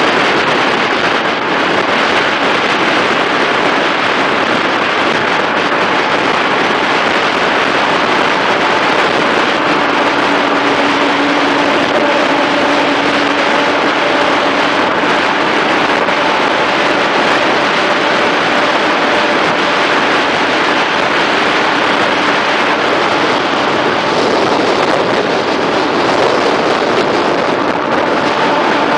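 Steady highway road noise: tyre and wind roar at speed, close alongside a roll-off truck and trailer. A faint low drone joins about ten seconds in.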